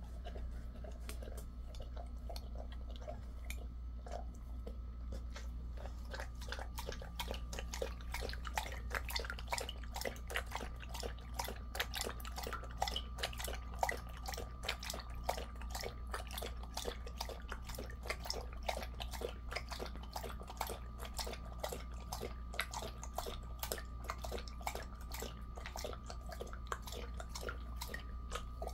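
Jindo mix dog eating from a stainless steel bowl, then from about six seconds in lapping water from a steel bowl in a quick, steady rhythm of wet laps.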